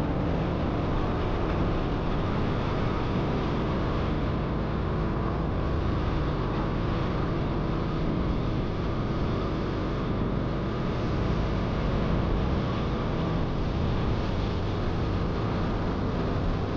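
Motorcycle riding at a steady speed: engine and road noise make an even, unchanging rush.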